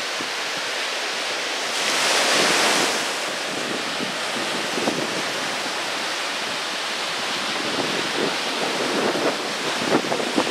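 Small surf breaking and washing up a sandy beach: a steady hiss of surf, with one louder wave wash about two seconds in and a light crackle of foam near the end.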